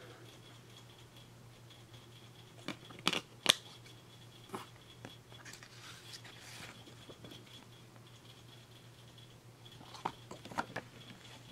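A clear plastic Blu-ray case and its paper cover insert being handled: a few sharp clicks and taps of the case, the loudest about three and a half seconds in, and soft sliding and rustling as the printed cover is drawn out from under the case's plastic sleeve and unfolded, with more small clicks near the end.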